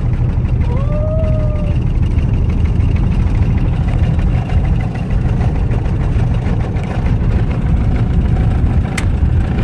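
A car driving slowly on a flat tyre, heard from inside the cabin: a steady low rumble with a repeated booming thump from the deflated tyre running almost on its rim.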